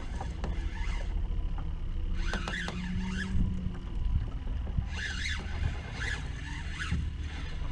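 Steady wind and water noise around a small boat drifting on open water. Two short clusters of high squeaky chirps come a couple of seconds in and again about five seconds in.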